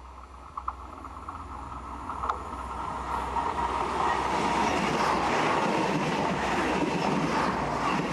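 A regional passenger train approaching along curved track and passing close by. Its running noise starts faint with a few clicks and grows loud about halfway through, staying loud as the cars go past.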